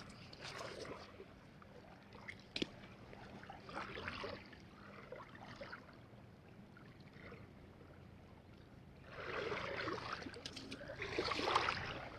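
Small waves washing over a pebble shore, with irregular rustling and scraping from close handling. A single sharp knock about two and a half seconds in, and louder rustling and scraping over the last three seconds.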